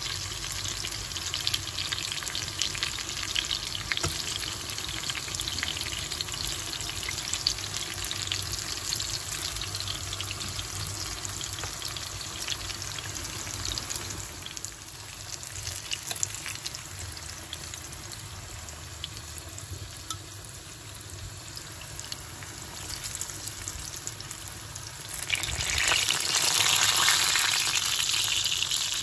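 Food frying in hot oil in a pan: a steady sizzle with fine crackling. It eases a little midway, then swells louder for a few seconds near the end.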